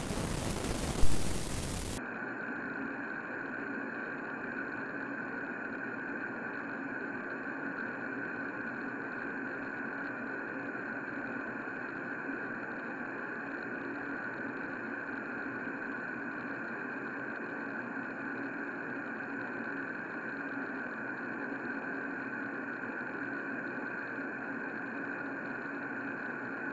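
Loud static-like noise with a sharp crack about a second in, cutting off abruptly about two seconds in to a steady drone of several held tones that stays even to the end.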